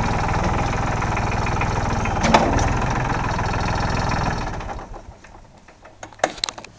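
2001 New Holland TC33D compact tractor's diesel engine idling steadily, with one sharp click about two seconds in. About four and a half seconds in the engine is shut off and dies away, and a few sharp clicks follow near the end.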